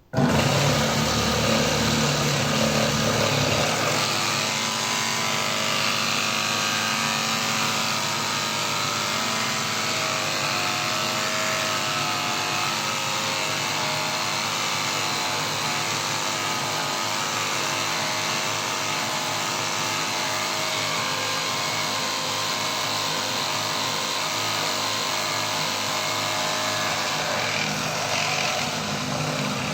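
Washing machine drain pump starting abruptly and running steadily with a motor hum, a little louder in the first few seconds.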